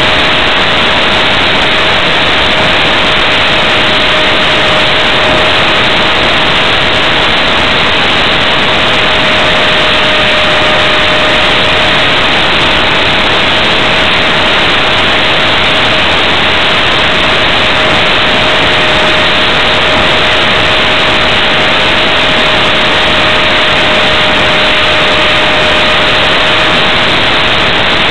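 Onboard sound of a ParkZone F-27C Stryker RC flying wing in flight: heavy, steady wind rush over the camera's microphone with the electric motor's whine as one steady high tone, the throttle held nearly constant.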